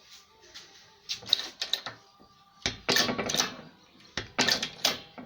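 Hand-operated hydraulic press being pumped to force a new shaft into a ceiling fan stator: three bursts of metallic clattering about a second and a half apart.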